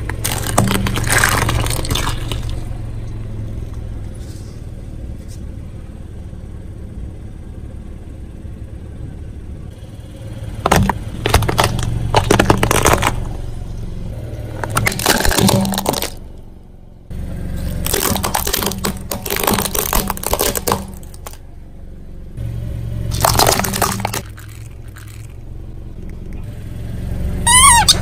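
Car tyre rolling over and crushing brittle objects: bursts of crackling, snapping and crunching, about five of them, over a steady low engine hum. Just before the end a high, warbling squeal begins.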